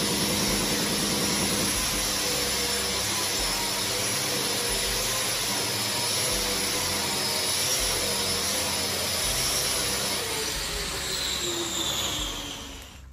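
A power tool running, with a loud, steady rushing noise over a faint motor whine; near the end the whine falls in pitch and the noise dies away as it winds down.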